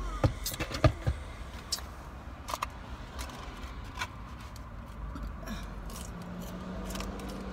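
Foam takeout container being handled while eating: a scatter of sharp clicks and light scrapes, several close together in the first second, then sparser.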